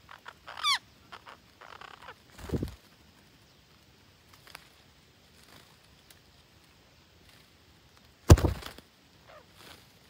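Green parrots squawking: a short call that bends up and down in pitch just under a second in, another harsh squawk around two and a half seconds, and the loudest, a harsh squawk about eight seconds in, with faint calls and rustles between.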